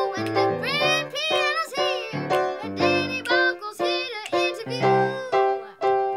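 A young girl singing an upbeat pop tune to piano accompaniment. The song ends on a held final chord near the end.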